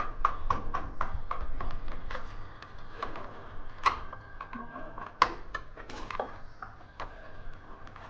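Irregular sharp clicks and taps from hand tools working electrical wiring, several a second at first, then sparser, with two louder knocks near the middle.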